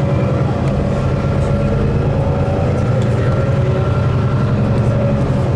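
Steady low engine hum from a vehicle, running evenly without revving.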